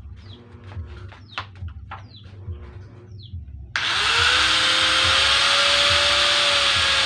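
Handheld angle grinder with a cutting disc starting up about two-thirds of the way in, whining up to speed and then running steadily and loudly. Before it starts, birds chirp, with a few light clicks.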